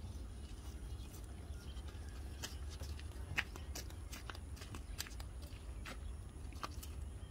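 Young goats eating grass from a child's hand: irregular crisp crunching and snapping of grass stems, with one sharper snap about three and a half seconds in, over a low steady rumble.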